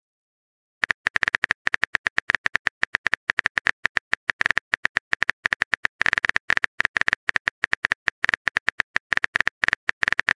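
Simulated phone-keyboard typing sound effect: rapid clicks, one per letter, starting about a second in and running on quickly as a text message is typed out.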